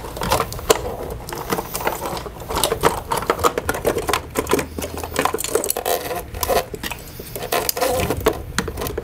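A wiring harness and its plastic connectors being fed and pulled through a motorcycle's plastic tail section: a dense run of irregular clicks, rattles and scrapes of wire and connectors against the plastic bodywork.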